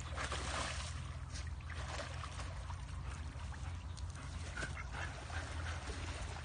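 A dog whimpering and yipping while it splashes through muddy water after a duck.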